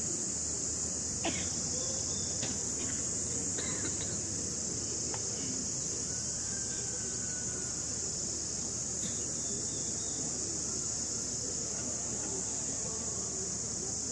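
A steady high-pitched hiss or drone, like an insect chorus, unchanging throughout, with a few faint ticks.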